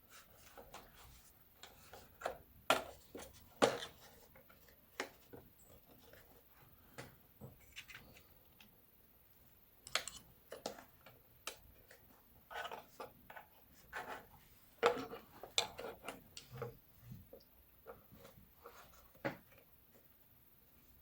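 Hard plastic case of a Yuneec ST-16 drone controller being handled and pried at during disassembly: scattered clicks, taps and brief scraping rubs, with a few sharper knocks.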